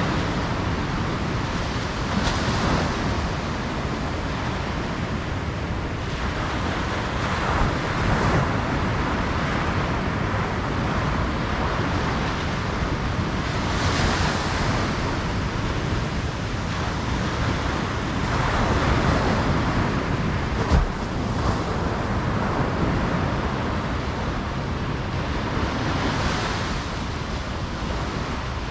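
Ocean surf washing onto a beach, a steady rush of water that swells as each wave breaks every five or six seconds, with a low wind rumble on the microphone. A single short, sharp tap about two-thirds of the way through.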